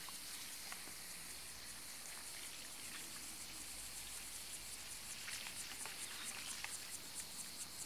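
Cicadas singing: a steady high-pitched buzz that turns into rapid pulsing, about five pulses a second, from about five seconds in. It is the chorus that starts with the peak summer heat.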